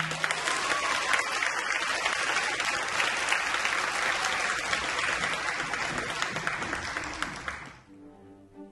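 Theatre audience applauding at the end of a dance, a dense patter of clapping that dies away about eight seconds in, as quiet music starts up.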